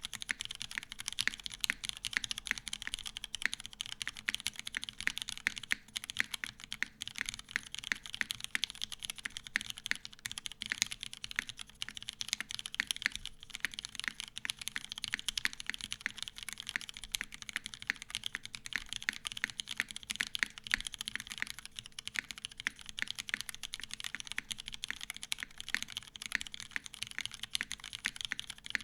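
Continuous fast typing on a TGR 910 CE mechanical keyboard with lubed vintage Cherry MX Black linear switches in a full brass plate and GMK keycaps: a dense, unbroken stream of keystroke clacks.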